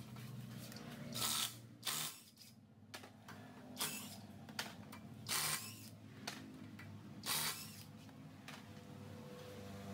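Cordless impact wrench rattling in short bursts on a car's wheel lug nuts, about five bursts spread across the few seconds, as the nuts are run off to remove the wheel.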